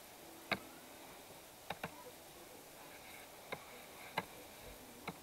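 About half a dozen short, sharp clicks at uneven intervals from computer input, over a faint steady background hiss.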